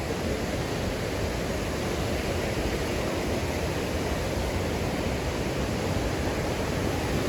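A river rushing steadily, a constant even wash of moving water.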